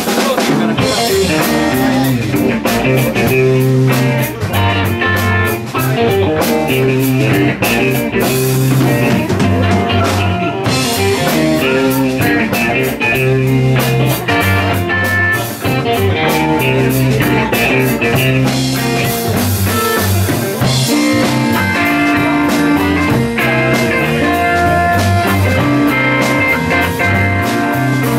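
A live band playing an instrumental funk tune: electric guitars over electric bass and a drum kit, with a steady beat and a repeating bass line.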